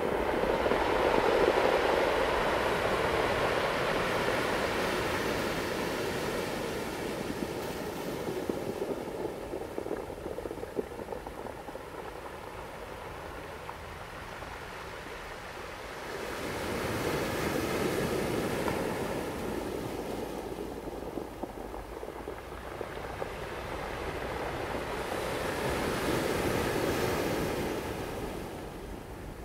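Ocean surf: waves breaking and washing in, the rush swelling and fading three times.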